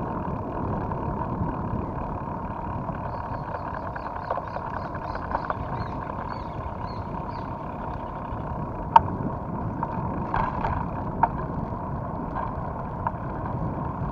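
Mountain bike rolling along a wet concrete street: a steady rush of wind on the action camera's microphone mixed with tyre hiss on the wet surface, under a faint steady whine. A few sharp knocks from the bike, the loudest about nine seconds in.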